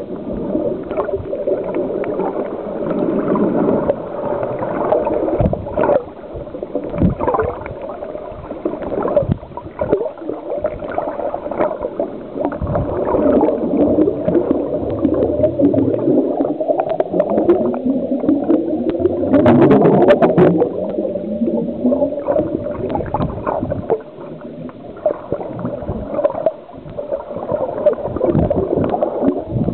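Muffled underwater gurgling and bubbling, steady with many small crackles. From about the middle, a drone rises in pitch for several seconds and then fades back.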